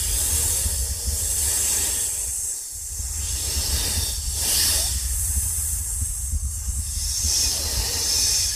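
A woman breathing heavily: slow, hissing breaths that swell about a second in, again around four to five seconds in, and near the end, over a steady low hum.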